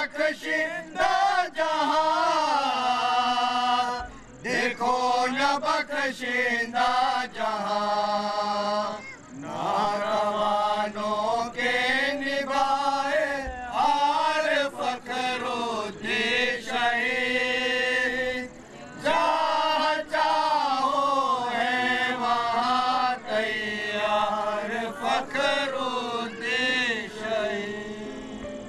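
Group of Bohra men chanting a devotional recitation together, one melodic line sung in long phrases broken by short pauses for breath.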